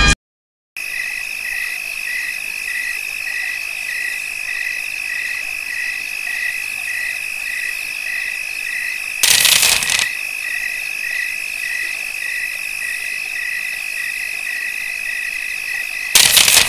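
Night-time cricket chorus: a steady high trill with a second chirp pulsing about twice a second, starting after a moment of silence. Two short bursts of noise cut across it, about halfway through and near the end.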